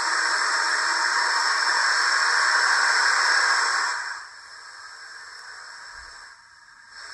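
Steam-locomotive hiss played by the Digitrains Zimo sound decoder in a Hornby OO gauge D16/3 model. It is loud and steady, then stops about four seconds in, leaving a fainter hiss.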